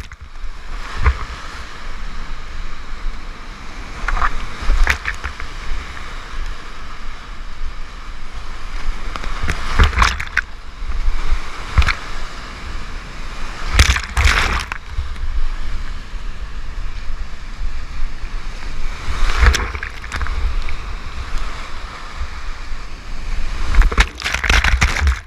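Heavy whitewater rapids rushing and churning right at the camera, with a deep rumble and sudden loud splashes as waves and foam break over it, about eight times.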